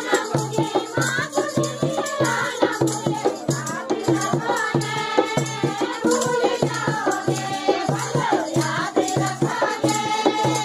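Group of women singing a folk song together, with rhythmic hand-clapping keeping the beat.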